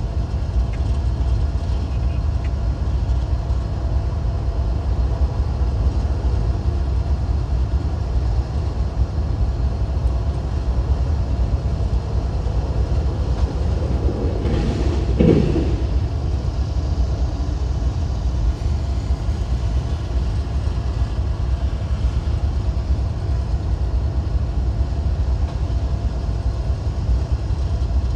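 Freight train cars rolling past: a steady low rumble, with a brief rising whine about halfway through.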